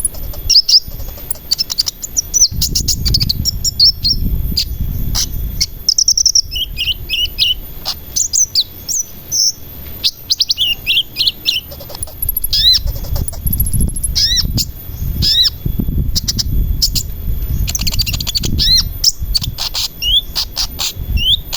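Sunbird ('kolibri') singing a fast, chattering song of short high chirps and quick rising and falling whistled notes, with a faint low rumble underneath.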